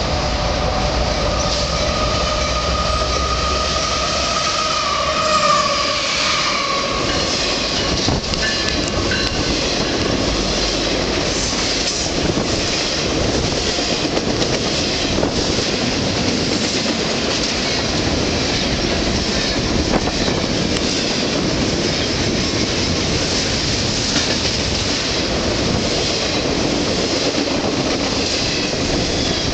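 Diesel freight train passing close by: the locomotive's engine hum and a steady whine drop in pitch about six seconds in as it goes by, then a long string of freight cars rolls past with continuous wheel rumble, clickety-clack over rail joints and some wheel squeal.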